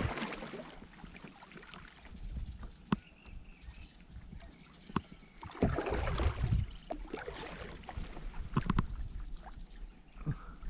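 Water splashing and sloshing around a fishing kayak, rising twice in a couple of swells, with a few sharp clicks and knocks.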